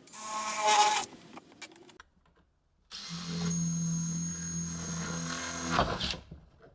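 Power drill spinning up briefly with a rising pitch, then, after a short pause, running at a steady speed for about three seconds while boring a hole before it stops.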